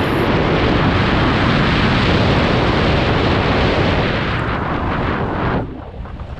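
Wind rushing over a helmet-mounted camera's microphone together with mountain-bike tyres rattling over gravel and rocks during a fast downhill run. The loud rushing noise drops off sharply about five and a half seconds in.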